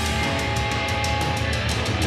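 Heavy rock music with guitar and a strong bass line, played through a JBL Charge 5 portable Bluetooth speaker in a room.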